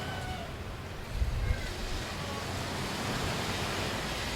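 Ocean waves washing onto a beach: a steady hiss of surf, with a brief low rumble a little over a second in.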